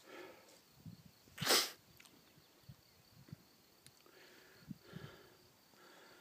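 Heavy breathing of an out-of-breath cyclist, with one loud, sharp burst of breath about a second and a half in. A faint, steady insect trill runs behind.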